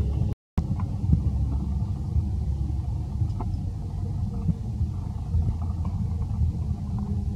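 Steady low rumble with a few faint scattered ticks. It cuts out completely for a moment about half a second in.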